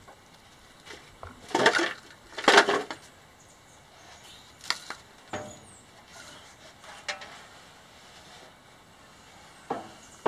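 Metal parts being handled as an electric motor is worked into place on a steel lumber-mill frame: two louder scraping clanks about two seconds in, then scattered lighter clicks and knocks.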